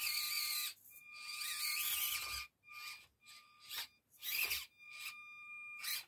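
Axial SCX24 Deadbolt mini crawler's small electric drive motor and gearbox whining in about six short stop-start throttle bursts, a steady high whine over a grinding hiss, as the truck crawls over a block.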